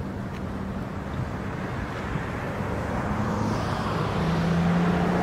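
Motorboat engine running steadily with a low hum, growing louder toward the end as the chase boat approaches.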